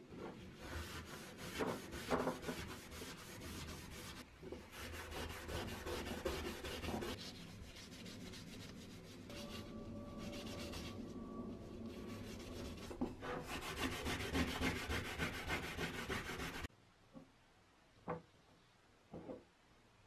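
A small wooden knob rubbed back and forth by hand on a grey non-woven abrasive pad, making a scratchy rubbing in quick strokes. It cuts off suddenly near the end, leaving a few faint taps.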